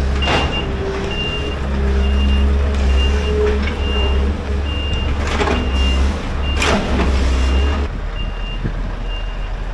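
Heavy diesel yard machinery running with its reversing alarm beeping steadily, a little over once a second, over a deep engine drone that drops away about eight seconds in. Three short hissing bursts cut across it.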